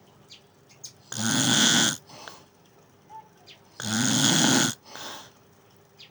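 Snoring: two loud snores, each under a second long and followed by a shorter, softer breath out, coming about three seconds apart.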